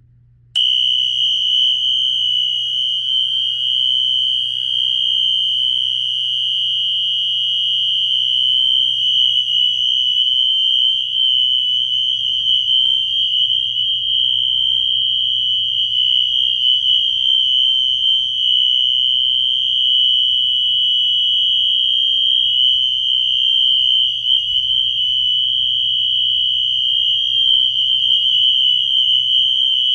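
Wheelock NS fire alarm horn sounding a continuous, unbroken high-pitched tone on its continuous setting, switching on about half a second in.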